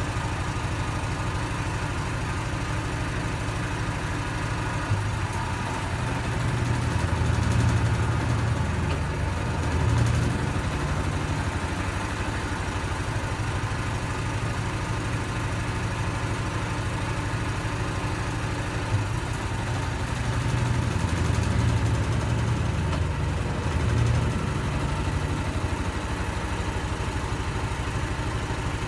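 Brastemp washing machine running with the abnormal noise it is being repaired for: a steady mechanical hum, with a low rumble that builds and fades twice.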